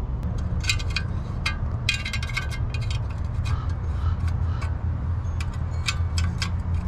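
Small metallic clicks and clinks of lock-washer nuts being turned and snugged onto the mounting studs of a brake caliper cover, with a quick run of clicks about two seconds in. A steady low hum sits underneath.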